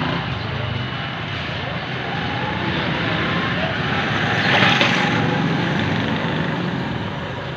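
Steady outdoor background noise that swells for about a second near the middle.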